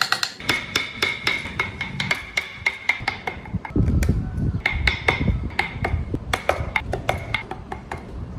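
A hammer tapping in quick repeated strikes, a few a second, each with a short metallic ring, as in woodworking. From about three and a half seconds in, a lower rumbling scrape runs under the taps for a couple of seconds.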